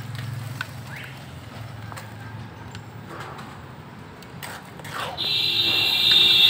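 Wet cement slid from a metal pan onto a stove mould and worked with a trowel: soft scrapes and light metal taps. About five seconds in, a much louder, shrill, steady sound starts and holds.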